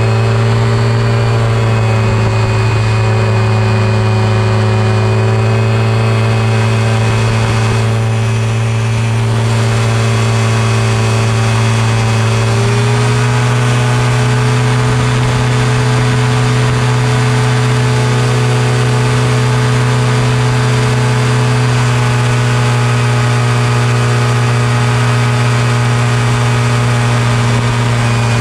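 Powered parachute trike's engine and propeller running hard through the takeoff roll and climb. It is a loud, steady drone whose pitch steps up slightly about halfway through.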